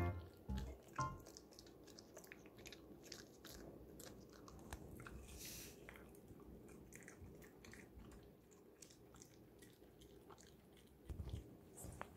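Silver poodle chewing a treat: faint, irregular crunching and clicking of teeth as it gnaws.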